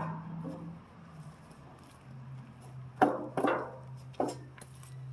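Three sharp knocks and clanks in quick succession about three seconds in, over a faint low steady hum.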